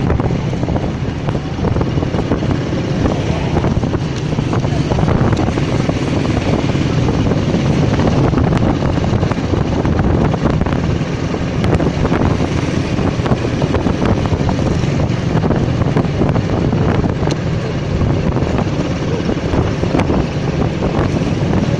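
Wind buffeting the microphone of a moving motorcycle, a steady low rumble, with the motorcycle's engine and road noise underneath.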